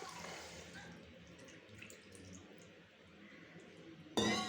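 A little water poured into a pan of chicken cooking on the stove: a hiss that is strongest in the first second, then fades to a faint simmer. A short, loud voice-like sound cuts in near the end.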